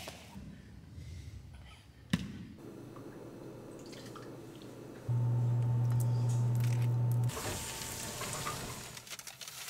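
Ingredients poured into a blender jug, with a sharp knock about two seconds in. A steady low hum then starts suddenly about halfway through, cuts off about two seconds later, and gives way to a hiss.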